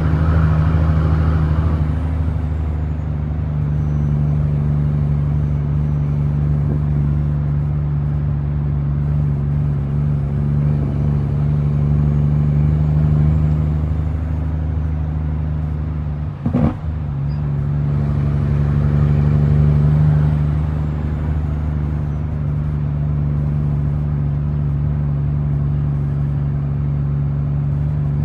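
A heavy truck's diesel engine running under way, heard from inside the cab as a steady low drone. About sixteen seconds in it dips briefly and there is a single sharp knock, then the engine swells for a few seconds before settling.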